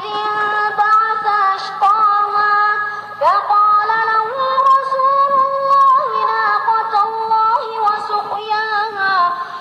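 Melodic Quran recitation (tajweed) by a high-pitched voice, long notes held and ornamented with slides between pitches. A new phrase begins with a rising glide about three seconds in, and another about six seconds in.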